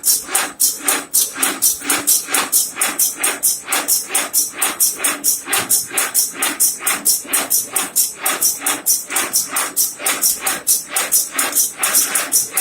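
Agarbatti (incense stick) making machine running at speed, its mechanism clattering in a fast, very even rhythm of about four to five strokes a second.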